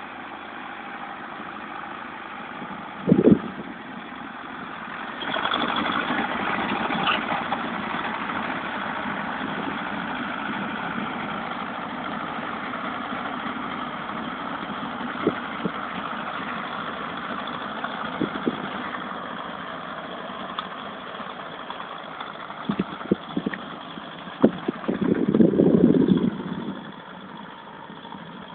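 Zetor 7245 tractor's four-cylinder diesel engine running steadily while it pulls a round baler through stubble, louder for several seconds as it passes close. A sharp thump comes about three seconds in, and a few knocks and a short louder rumble near the end.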